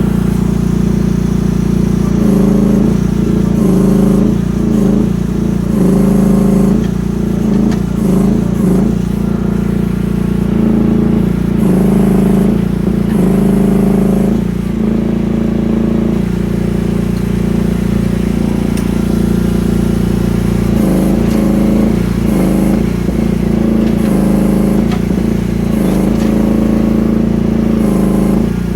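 Briggs & Stratton 13.5 HP petrol engine of a Rippa R10 mini excavator running steadily. Its pitch dips and recovers over and over through several stretches, then evens out in between.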